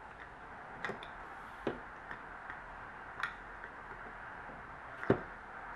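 Small plastic Play-Doh shaping toy clicking and knocking against a table as it is pressed down onto the dough: five or so separate light clicks, the loudest about five seconds in.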